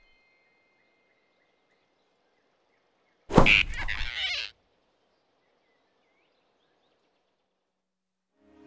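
Cartoon sound effect: near silence broken about three seconds in by one sudden loud whoosh that falls in pitch and dies away after about a second.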